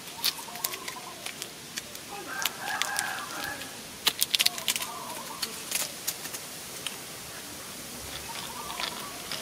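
Sharp clicks and taps of the small plastic and metal parts of a homemade RC truck rear axle being handled, with a quick cluster of clicks about four seconds in. A bird calls in the background, loudest about two to three seconds in.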